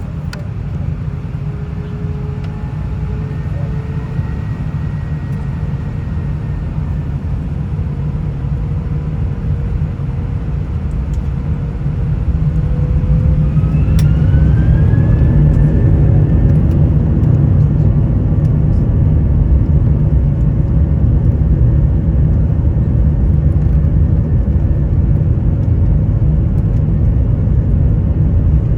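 Airliner cabin noise inside an Airbus A319: a low steady hum and rumble with the whine of the jet engines. About thirteen seconds in, the engine whine rises in pitch over a few seconds and the sound grows louder, as the engines spool up.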